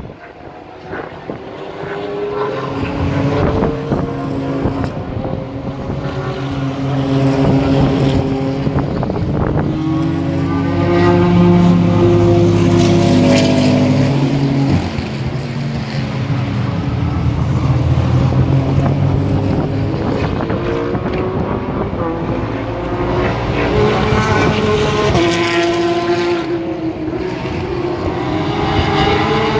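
Race car engines passing through a corner one after another. Their pitch falls and rises as the cars brake and accelerate out. At times several engines overlap.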